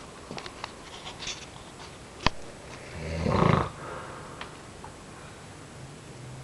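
A man snoring in his sleep: one loud, low snore about three seconds in, lasting under a second, and a fainter low snore near the end. A sharp click comes just before the loud snore.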